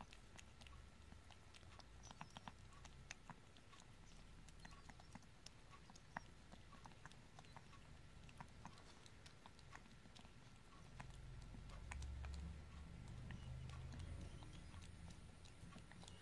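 Kitten licking lickable paste treat from a squeeze tube: faint, quick wet clicks of its tongue at an irregular pace. A low rumble builds about eleven seconds in and fades again a few seconds later.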